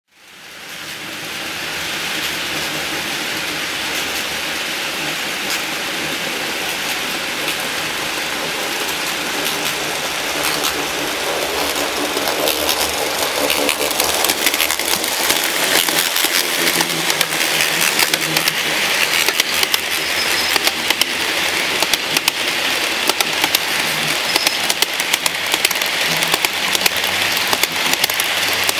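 HO-scale model freight train running on its track: a steady rattling whir of small wheels and running gear, with many fine clicks. The sound grows louder and busier about halfway through as the train comes close.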